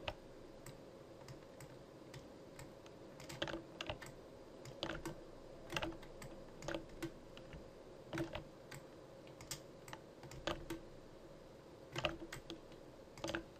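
Scattered clicks of a computer mouse and keyboard, single or in quick pairs every second or so, as vertices are picked one after another in 3D modelling software, over a faint steady hum.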